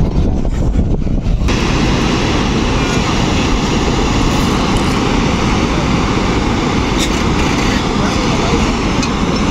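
Steady rushing noise of the Sharda River's water pouring through the barrage gates, starting abruptly about a second and a half in after a brief low rumble.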